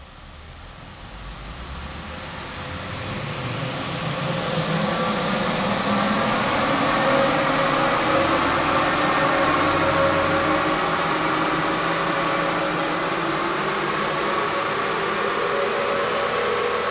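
Stock 2018 Ram Rebel's 3.6-litre Pentastar V6 making a full-throttle pull on a chassis dyno, its engine note building over the first several seconds and then rising slowly in pitch as the revs climb. A steady rushing noise runs underneath.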